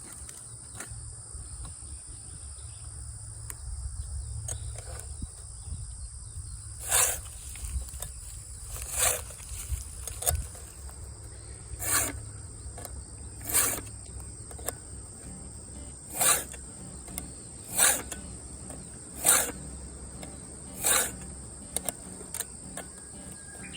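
A file rasping across the cutter teeth of a Husqvarna Rancher 450's chain in short, even strokes about one every one and a half seconds, starting about seven seconds in. A steady high insect drone runs underneath.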